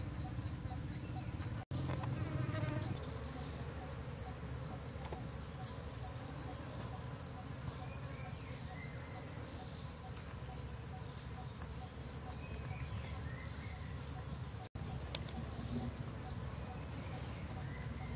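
Steady high-pitched chirring of insects over a low background rumble, with a few short high chirps. The sound drops out for an instant twice.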